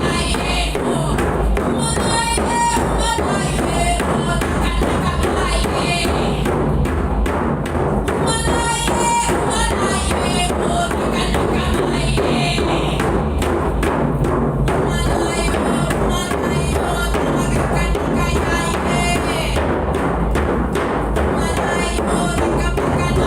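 Music with a steady, driving percussion beat that runs unbroken throughout.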